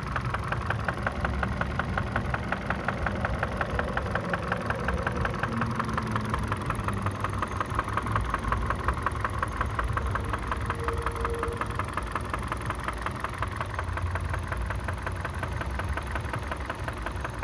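Kia Ceed 1.6 engine running with a fast, regular knock keeping time with the engine, a knock that has developed at 62,000 km and whose cause is not known.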